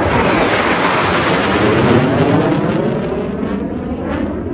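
F-16C Fighting Falcon jet flying past under power, a loud jet roar with a whooshing sweep that falls in pitch as it passes, loudest about two seconds in and easing off after.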